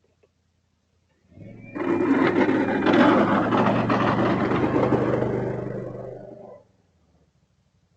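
Can-Am Outlander 850 ATV's V-twin engine coming up under load about a second in, running loud and rough for about five seconds, then dying away and stopping near the end.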